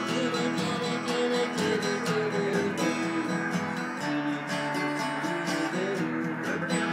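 Acoustic guitar being played, strummed chords in a steady rhythm.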